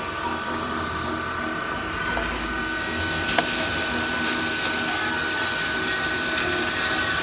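CNC machining centre drilling EN8 steel with a TaeguTec brazed carbide-tipped drill at 2500 rpm: a steady spindle whine over the hiss of through-tool coolant, with a sharp tick about three and a half seconds in.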